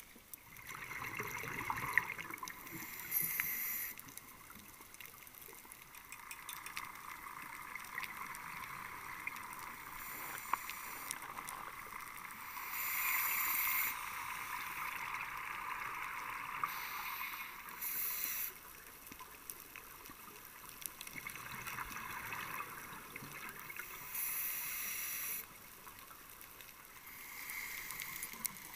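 Scuba regulator breathing heard underwater: a steady hiss with louder bubbling exhalations every several seconds, each lasting a second or two.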